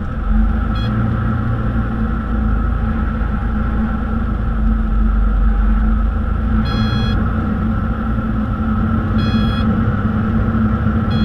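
Cessna 182's piston engine and propeller running steadily, heard inside the cockpit. Short high beeping tones sound briefly about a second in and twice more in the last few seconds.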